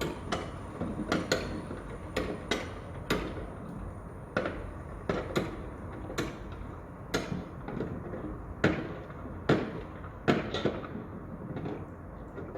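Construction site: irregular sharp knocks and bangs, roughly one or two a second, over a steady low rumble.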